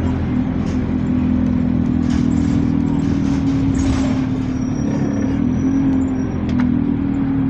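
Bus ENL70 driving along, heard from inside the saloon: a steady engine drone with a constant low hum that wavers only slightly in pitch, over even road noise.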